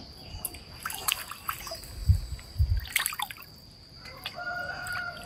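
Water splashing and dripping as a small monkey paddles its hands in water pooled on a pool's tarp cover, with two dull thumps about two seconds in.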